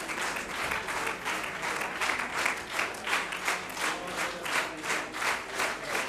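Audience applause that settles, from about two seconds in, into rhythmic clapping in unison at about three claps a second.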